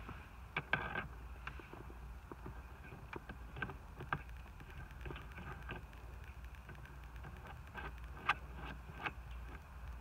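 Scattered light clicks and taps of a shift knob being handled and screwed onto the threaded shift lever adapter, over a low steady rumble.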